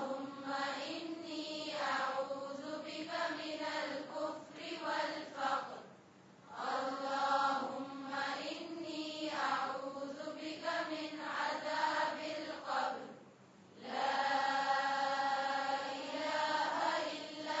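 A voice chanting in long, drawn-out melodic phrases, with short pauses about six and thirteen seconds in.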